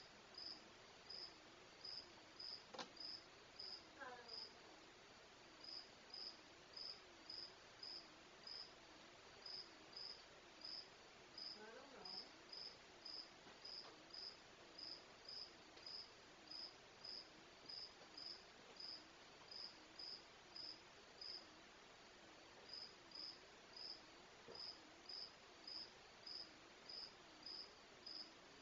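Faint cricket chirping in a steady, even rhythm of about two high chirps a second, pausing briefly twice.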